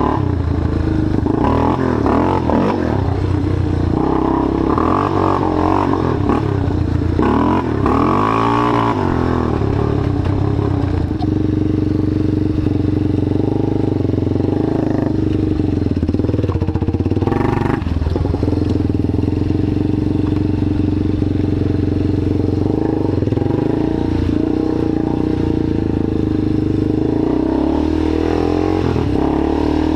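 Rebuilt ATV's engine running under load while riding, its pitch rising and falling with the throttle during the first ten seconds and again near the end, steadier in between.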